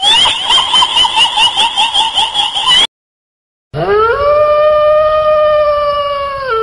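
Spooky sound effects: a fast, quavering high-pitched warbling cry for about three seconds, then after a short silence a long howl that rises and holds steady for nearly three seconds before dropping near the end.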